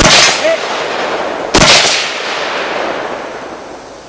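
Two 5.56 AR-15 rifle shots about a second and a half apart, each sharp crack followed by a long echo that dies away. About half a second after the first shot comes a faint short ring, the steel target being hit.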